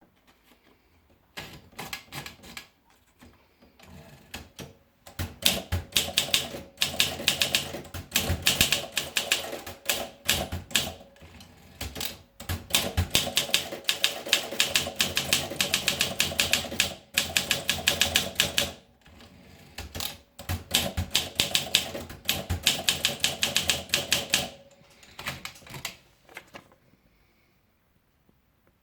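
Olympia SM2 manual portable typewriter being typed on: rapid key strikes in bursts of several seconds with short pauses, stopping a couple of seconds before the end.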